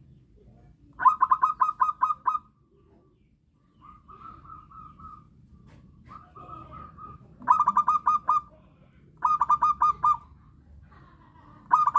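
Zebra dove cooing in phrases of rapid staccato coos, each about a second long: four loud phrases with two softer ones between them.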